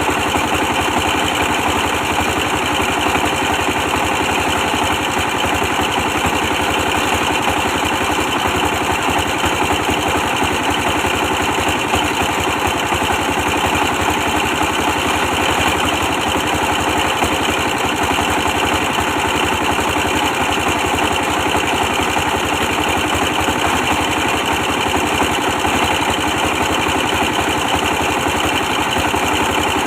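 A 24 hp diesel engine driving a brick-press machine, running steadily at an even speed, with a fast, regular low pulse of its firing.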